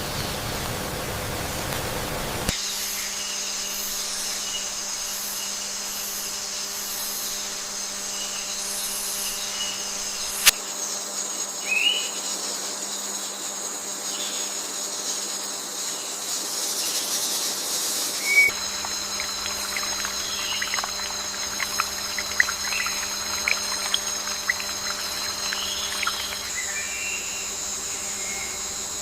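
Tropical forest ambience: a steady high-pitched insect drone of several layered tones, with short bird chirps scattered through it and one sharp click. The background shifts abruptly a few times.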